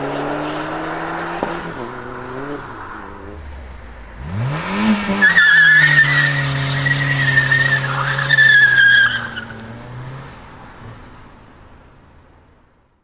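A car engine running steadily as it pulls away, then a Mk2 VW Golf revving up and doing a front-wheel burnout: the front tyre squeals in a high, wavering screech for about four seconds while the engine is held at high revs. The sound fades out near the end.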